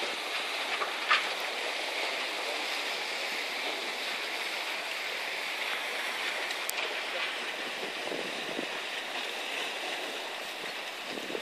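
Steady hiss of sea water splashing and lapping, with one sharp click about a second in.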